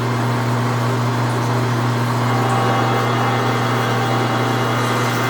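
Precision Matthews 1640 lathe running steadily under load as a 2-1/2-inch drill cuts into cold rolled steel: a constant low hum with an even hiss of cutting over it. The cut sounds good, going smoothly without building heat.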